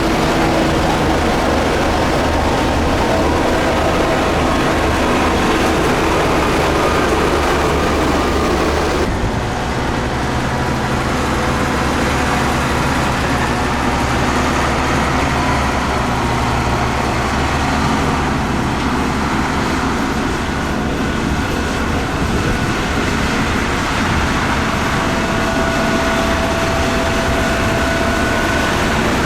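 Heavy diesel road-building machinery running steadily, with a low engine drone and mechanical noise. The sound changes abruptly about nine seconds in, as the engine note and the hiss shift.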